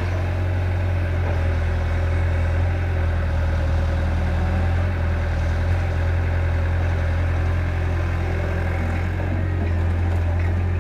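Diesel engines of Eicher tractors and a Caterpillar excavator running steadily: a low, even drone with no revving.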